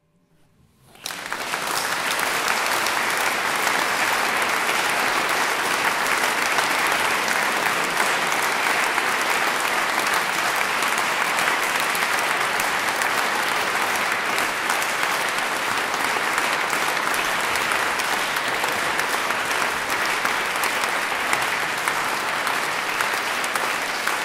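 Audience applauding: dense, steady clapping from a large seated crowd. It starts about a second in, right after the last note dies away.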